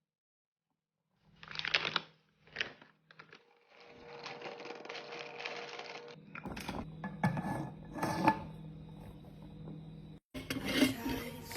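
Groceries and plastic containers being handled and put into a fridge: packaging rustling, with plastic clicking and knocking as items are set down. It starts after about a second of silence, and a faint steady hum runs under it from about four seconds in.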